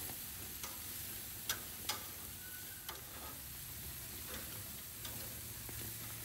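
Wild hog coppa steaks sizzling on a gas grill's grate as they are flipped with metal tongs, with about six sharp clicks of the tongs against the grate and meat.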